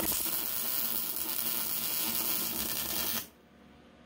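MIG welding arc crackling as a bead is laid on a steel-tube trike frame, for about three seconds; it stops suddenly when the trigger is released.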